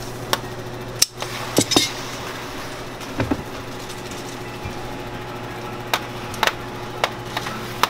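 Hard candy canes clicking and tapping on a hard tabletop as they are shaped by hand and set down, about eight sharp taps spread through. Underneath runs the steady hum of an old electric desk fan blowing over the cooling candy.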